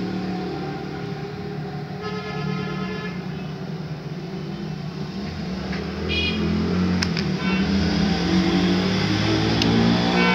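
Road traffic rumbling steadily, with several short car-horn toots and two sharp clicks in the second half.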